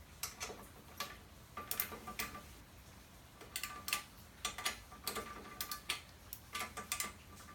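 Irregular sharp metallic clicks and light clinks from hand tools being handled, some in quick clusters with a brief thin ring.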